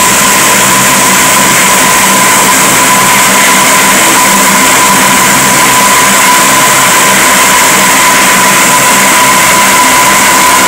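Lockheed P-3 Orion's Allison T56 turboprop engines running as the aircraft taxis past: a loud, steady high whine over a low propeller drone.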